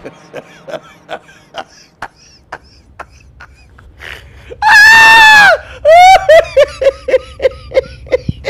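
A woman's loud, high-pitched startled scream about five seconds in, followed by a quick run of short high laughs, about five a second. Faint scattered taps and snatches of voices come before it.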